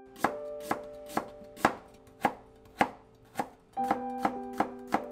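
Kitchen knife chopping on a cutting board in sharp, even strokes about two a second, coming faster near the end, over soft background music with held notes.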